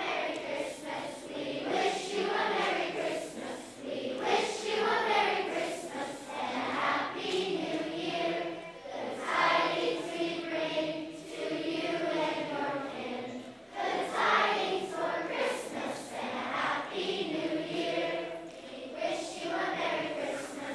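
Elementary-school children's chorus singing a Christmas carol in unison, voices sustained without a break.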